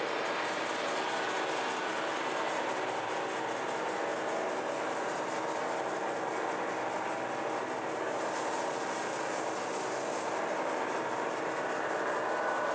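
A steady, continuous noise with no pauses or clear beat, of the kind a running train makes.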